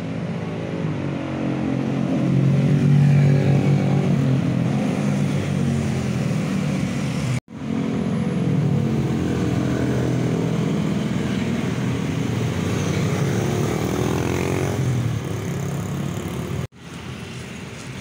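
Motor vehicle engines passing, their pitch rising and falling, loudest about three seconds in; the sound breaks off sharply twice.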